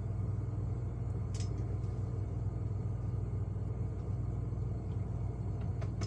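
Steady low hum with a few faint light clicks.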